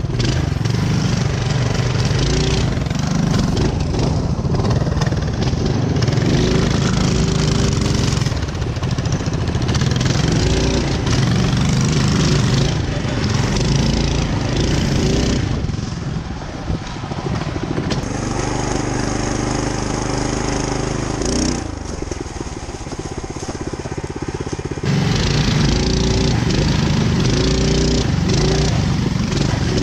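Mega Moto 212 mini bike's 212cc single-cylinder engine running as the bike is ridden over a dirt trail. The engine note shifts with the throttle, eases off a little in the middle, then opens up again about five seconds from the end.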